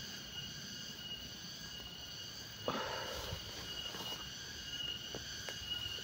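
Steady, high-pitched insect chorus of buzzing and shrilling that holds an even tone throughout. A brief rustling burst comes about halfway through, and two faint ticks follow near the end.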